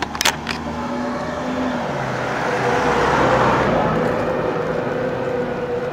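Road traffic: a car passes, its noise swelling up to a peak in the middle and easing off, over a steady hum. A few sharp clicks sound just after the start.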